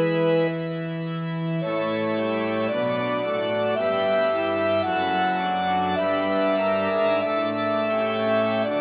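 Background organ music: slow, held chords that change about once a second.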